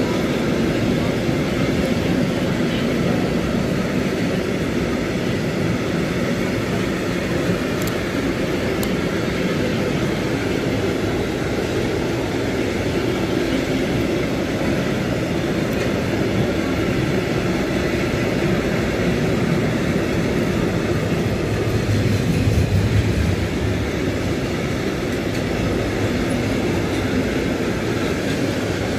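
Freight train of covered bogie vans rolling past close by at speed: a steady rumble and clatter of wheels on the rails, swelling briefly a little over twenty seconds in.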